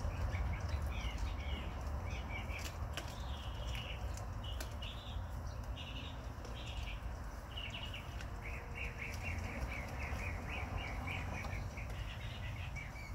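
Small birds chirping in short, high calls, with a quick run of chirps in the second half, over a steady low rumble.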